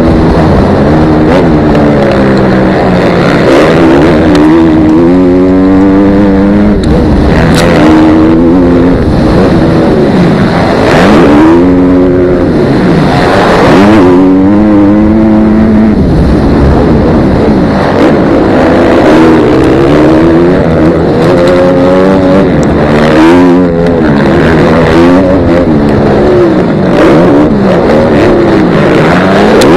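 Motocross dirt bike engine revving hard and close, its pitch climbing and dropping again and again as the rider accelerates and shifts through the gears.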